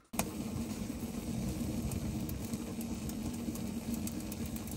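Wood stove burning, a steady rumble from the firebox with scattered sharp crackles.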